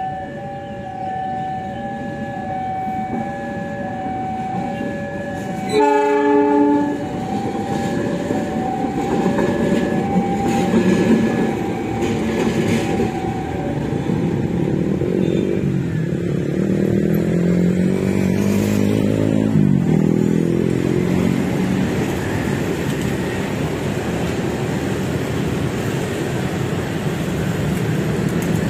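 Level-crossing warning bell ringing in a steady on-off pattern, with one short diesel locomotive horn blast about six seconds in. From about halfway the locomotive's diesel engine is heard running as it passes, its note rising and falling.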